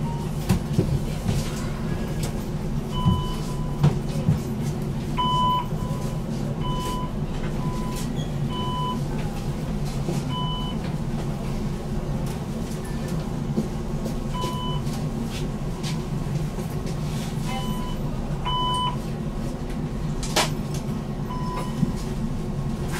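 BN GTL8 tram's steady low electrical hum, with about a dozen short electronic beeps at irregular intervals and a few sharp clicks over it.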